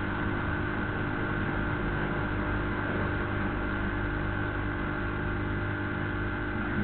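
Steady hum and hiss with a few constant tones, the background noise of the hall and its recording, with no speech.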